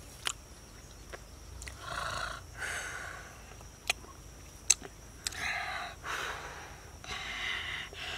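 Close-up eating noises over grilled beef skewers: three sharp clicks or smacks and several breathy puffs of air through mouth and nose.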